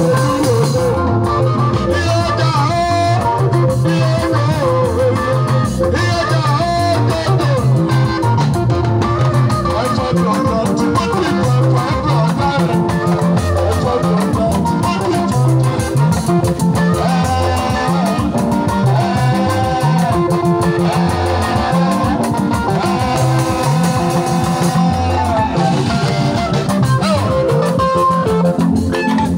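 Live band music played through a PA: electric guitars picking melodic lines over bass guitar and a drum kit keeping a steady beat.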